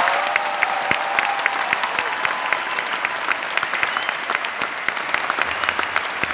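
Large concert audience applauding, many hands clapping together, the applause thinning slightly as it goes on.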